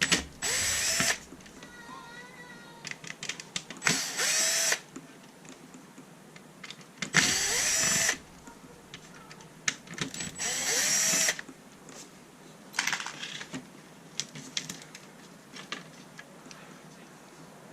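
Powered screwdriver running in four short bursts of about a second each, backing screws out of a plastic RC car chassis, with small clicks of parts being handled in between.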